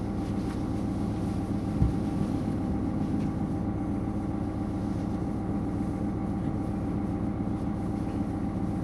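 Diesel engine of a DB class 641 railcar idling while the train stands still, heard inside the passenger compartment as a steady low hum, with one short knock just under two seconds in.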